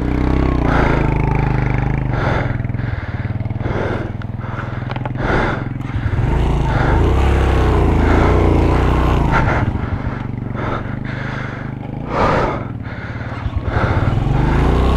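Suzuki GS 150SE's single-cylinder four-stroke engine pulling hard up a steep rocky climb, its pitch rising and falling as the throttle works. Tyres and chassis clatter over loose stones, with repeated short knocks.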